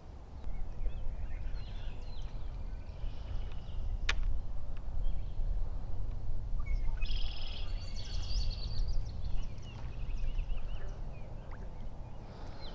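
Songbirds calling and singing in a marsh, loudest in a chattering burst about seven seconds in, over a low rumble on the microphone. A single sharp click about four seconds in.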